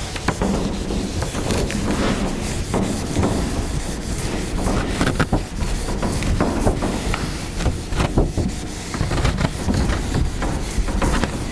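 A whiteboard eraser rubbed across a whiteboard in repeated scrubbing strokes, wiping off marker writing.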